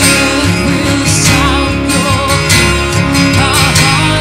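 Live worship band playing: acoustic guitar, electric bass and violin, with a wavering melody line on top.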